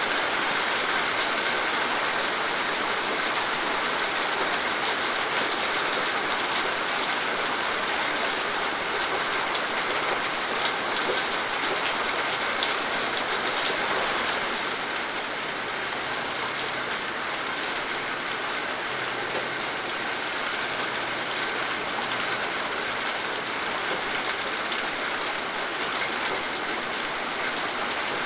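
Steady rain falling, a dense hiss dotted with the ticks of individual drops hitting a surface. It eases slightly about halfway through.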